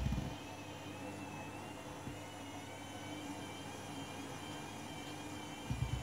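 Candy Grand'O Vita front-loading washing machine drum turning on a half-load spin. The motor gives a steady whine that wavers slightly in pitch over a low hum, with low thudding at the very start and again near the end.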